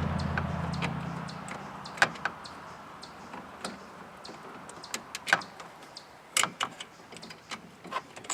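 Scattered sharp clicks and knocks of hand work on a car's hood latch: metal parts and tools being handled and the latch being worked loose, the loudest click about two seconds in. A low engine hum fades away in the first second.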